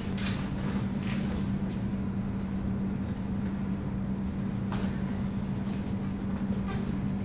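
Steady low hum and rumble of room tone. A few brief soft brushing sounds come from bare feet moving on the wooden studio floor.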